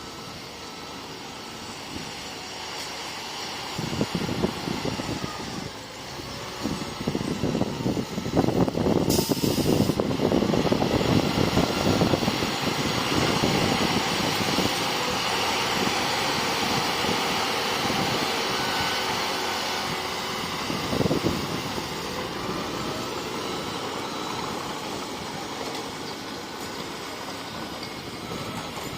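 Heavy diesel earthmoving machinery running, growing louder about four seconds in, loudest a few seconds later, then slowly easing off. A short hiss comes about nine seconds in.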